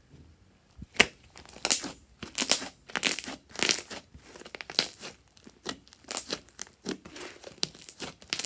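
Fluffy slime being squeezed, stretched and pressed by hand: an irregular run of sticky squelches and sharp crackles, starting about a second in.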